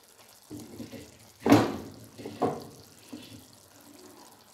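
Fish curry simmering in a pan, its gravy bubbling gently. A sudden loud clatter comes about a second and a half in, with a quieter one about a second later.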